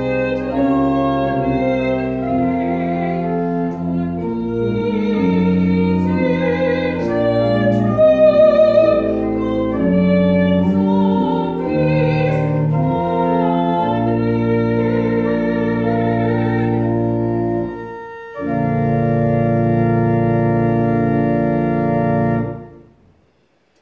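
Church organ playing slow, sustained chords. After a brief break it plays a final held chord that stops about a second before the end.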